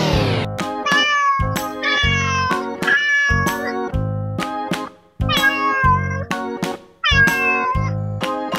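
Repeated high-pitched cat meows, about one a second, each falling in pitch, laid over upbeat boogie-woogie background music.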